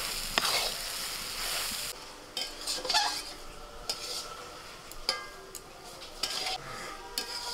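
Long metal spatula stirring and scraping a thick jackfruit-and-potato chop filling in a large metal kadai over the fire. A sizzling hiss is loudest for the first two seconds; after that the spatula scrapes and clinks against the pan about once every half second to second.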